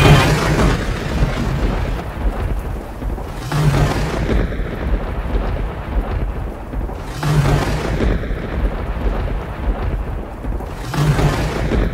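A dark ambient drone from an Apprehension Engine, dense rumbling and scraping noise that swells about every three and a half seconds, each swell carrying a short low hum.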